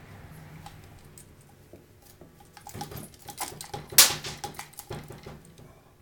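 Hands handling a dirt bike's aluminium radiator and its mounting bolts: faint rustling and scraping with scattered small clicks and taps, and one sharper click about four seconds in.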